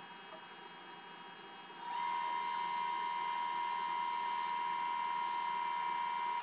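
A steady, high electronic tone comes on about two seconds in, holds unchanged, and cuts off suddenly, over a faint steady hiss.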